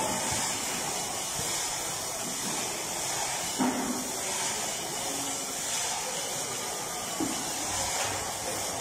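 Steady hiss of background noise in a large slaughter hall, with two brief knocks, one about three and a half seconds in and one about seven seconds in.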